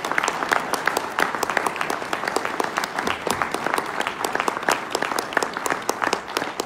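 Audience applauding, with a few hands clapping close by standing out as sharp individual claps.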